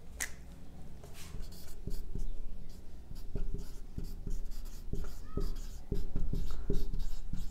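Marker pen writing on a whiteboard: a run of short, irregular strokes and taps as words are written, with a brief squeak of the tip about five seconds in.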